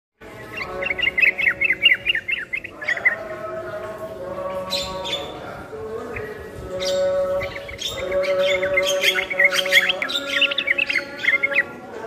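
Yellow-vented bulbul and Javan myna calling together: quick runs of bright chirps near the start and again through the second half, over a steady lower held tone.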